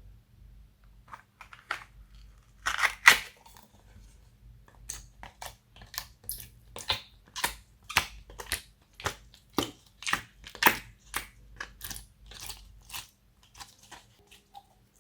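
Homemade slime being squished and kneaded by hand, giving sticky, crackling clicks about twice a second, with the loudest pops a few seconds in.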